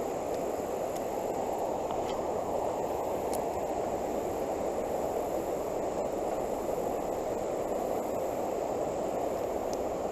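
Steady rushing of a fast, flood-swollen creek, an even low noise that holds at one level throughout.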